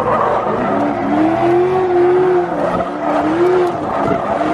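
Honda K-series four-cylinder engine in a rear-wheel-drive K-swapped Subaru Impreza being revved hard while drifting, its pitch climbing and dropping back about three times.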